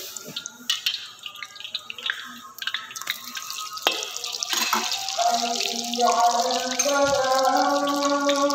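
Oil sizzling and crackling around a battered fritter deep-frying in a wok. From about five to six seconds in, a call to prayer sung in long held notes rises over the frying and grows louder.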